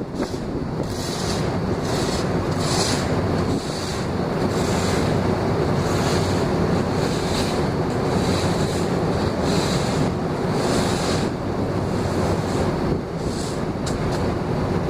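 Steady machinery hum under a continuous rushing noise, with wind buffeting the microphone.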